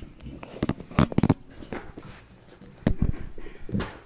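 Handling noise of a phone being picked up and moved about: a series of knocks, rubs and clicks on its microphone, loudest about a second in and again near three seconds.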